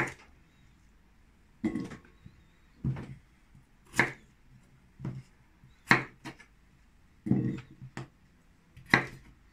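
Knife cutting vegetables on a wooden cutting board: single knocks about once a second, slow and separate.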